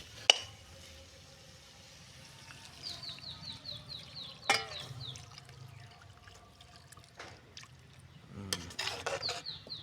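Warm water being poured into a pot of curry that has just finished frying, with a sharp knock just after the start.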